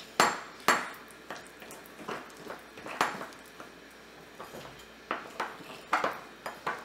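Metal spoon stirring thick black royal icing in a bowl, knocking and clinking against the bowl's sides at irregular intervals with wet scraping between, the two loudest clinks in the first second.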